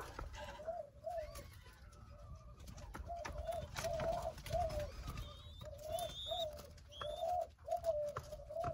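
Doves cooing: a run of short, rising-and-falling coos, about two a second, with a few brief high chirps from another bird about midway through.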